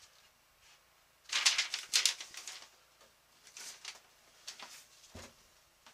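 Paper instruction sheets rustling and crinkling as they are handled and turned, in a cluster of crackly rustles about a second and a half in, followed by a few fainter rustles.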